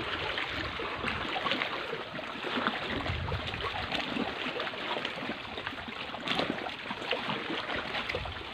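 Shallow seawater trickling and lapping among shoreline rocks: a steady, crackly wash with a few brief low rumbles.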